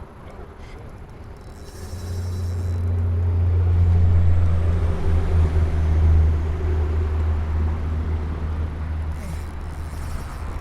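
A low, steady motor hum that swells over the first few seconds and then slowly eases off.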